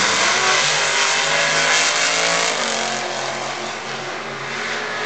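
Two drag-racing cars launching off the line at full throttle and accelerating hard down the strip, the engine sound sagging a little as they pull away.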